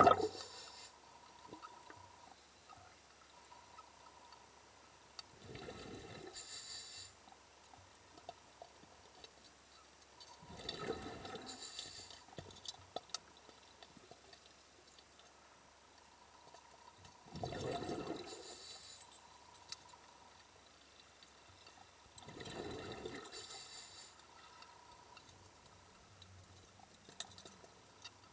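Muffled rushes of water and bubbles heard through an underwater camera, coming in bursts of a second or two about every five to seven seconds.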